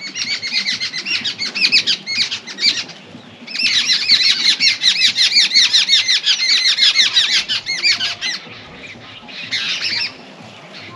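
Birds chattering: rapid runs of sharp, repeated high calls in two long bouts, with a short break about three seconds in and a brief burst near the end.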